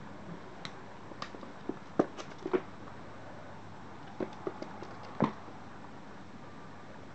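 Kitten's paws landing and scrabbling on a wooden floor as it pounces at a string toy: irregular light thumps and taps over a faint hiss, the loudest about two seconds and five seconds in.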